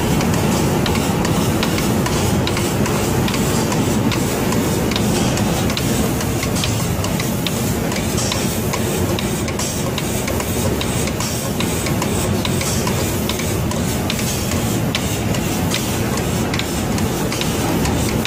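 Automatic spray-painting machine for cabinet doors running: a steady mechanical hiss and rumble with a continual run of sharp ticks.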